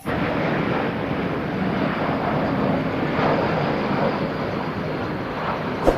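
Airplane engine sound effect: a steady rushing noise with a faint low hum, starting abruptly.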